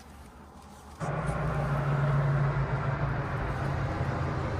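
A motor vehicle running past, with a steady low engine hum over road noise, starting suddenly about a second in.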